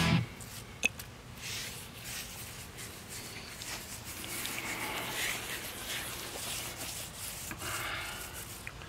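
A hand rubbing over the damp, rough surface of a freshly unmolded concrete atlas stone, a scraping hiss that comes and goes with the strokes, smoothing the still-moist concrete. There is one sharp click about a second in.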